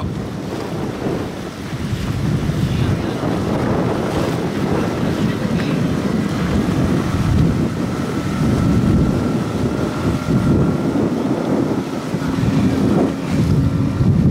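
Wind buffeting the microphone over choppy water, with a small outboard motor running at speed underneath; a faint steady whine sounds through the middle.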